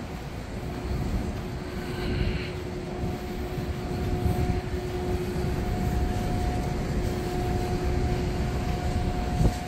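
Steady low rumble with a steady mid-pitched hum from rooftop ventilation machinery, and a single knock near the end.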